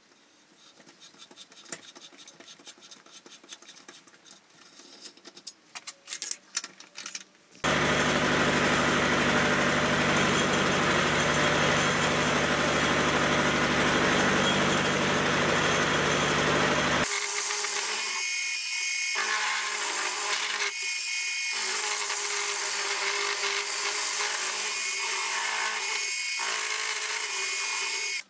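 A tap being turned by hand in a tap wrench, threading a hole in a small steel part: faint scraping clicks. About seven seconds in a milling machine starts cutting steel with an end mill, a loud steady cutting noise with a low motor hum, which changes character about ten seconds later and dips briefly three times as the cut goes on.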